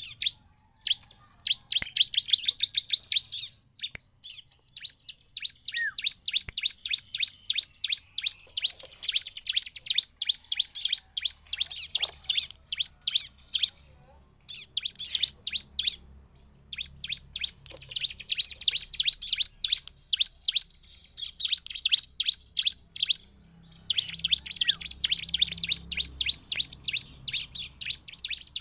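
Bar-winged prinia (ciblek) singing: long runs of rapid, high, sharply repeated chip notes, each run lasting several seconds, with short pauses between them.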